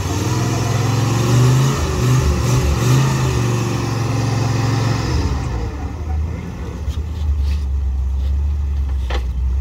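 Small-block V8 in a Willys M38A1 jeep, revving unevenly under load as it crawls up a rock ledge, then settling to a lower steady idle about five seconds in. A short sharp knock near the end.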